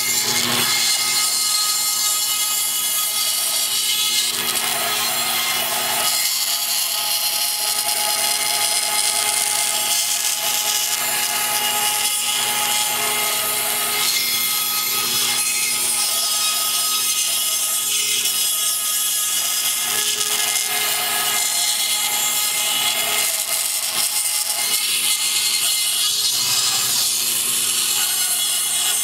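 Bandsaw running steadily with its blade cutting lengthwise through a mahogany board.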